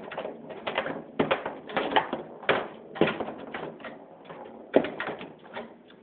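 Foosball table in play: a fast, irregular string of sharp knocks and clacks from the ball and the rod figures, several a second, with one especially loud hit near the end.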